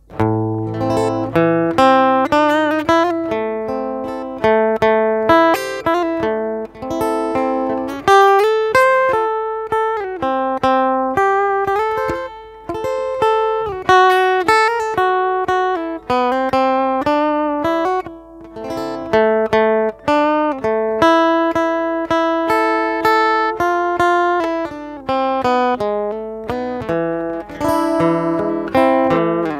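Morgan acoustic guitar played fingerstyle in a bolero accompaniment in A minor: plucked melody notes and chords over a bass line, one note after another with many quick attacks.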